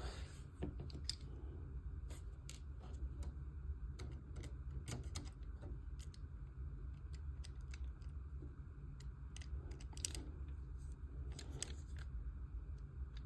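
Scattered small clicks and ticks of a hand screwdriver and model parts being handled as small screws are driven into the model's frame, over a steady low hum.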